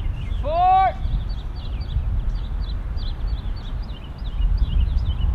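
Many small birds chirping with short, high calls, over a steady low rumble of outdoor air. About half a second in comes one louder, drawn-out cry that rises and then falls.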